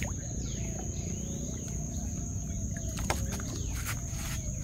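Birds calling with falling whistled notes over a steady high insect drone, with low water sloshing as a trammel net is pulled in by hand from a wooden canoe. A sharp click about three seconds in.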